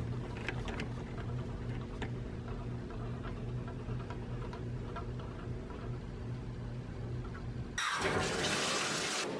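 A steady low hum, then about eight seconds in a shower is turned on at its single-lever valve and water starts spraying from the shower head with a loud, even hiss.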